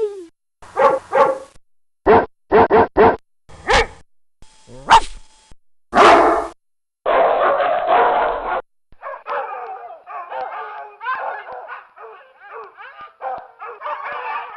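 Dogs barking, one recording after another: short sharp barks, singly and in quick runs of three or four, at varied pitches. From about nine seconds in, a continuous jumble of higher calls follows without pause.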